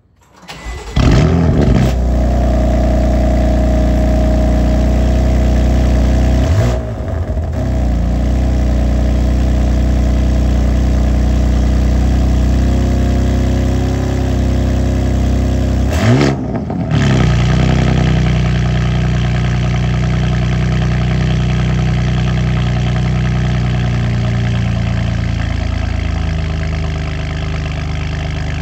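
BMW M4 F82's twin-turbo S55 inline-six, exhaust with a VRSF single mid pipe, cold starting: it catches about a second in with a flare in revs, then settles into a steady high cold idle. Twice the sound drops briefly and flares up again, and near the end the idle steps down lower.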